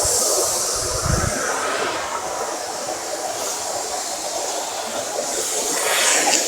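Steady rushing of a waterfall: an even hiss of falling water with no rhythm or pitch, with a few low thumps in the first second.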